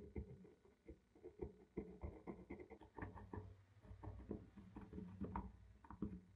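Thin metal blade scraping residue from the textured plastic housing of a Black & Decker BD 561 drill: a run of short, quick scratching strokes, faint and irregular.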